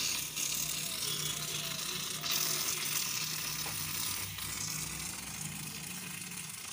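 Aluminium pressure cooker on a lit gas burner hissing and sizzling as excess water boils out from under its lid onto the hot stove. Too much water was put in, so the extra water is forced out.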